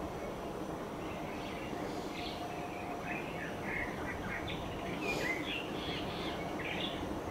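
Birds chirping in short, quick phrases over a steady background hiss of outdoor ambience.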